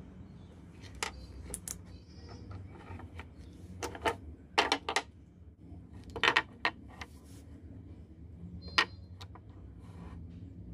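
18650 lithium-ion cells being handled on a wooden tabletop: several clusters of sharp clicks and knocks as the metal-ended cells are picked up, tapped against one another and set down.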